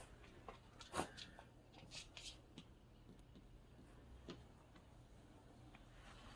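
Near silence with a few faint, short clicks and rustles: a small one about a second in, a cluster around two seconds and one more past four seconds.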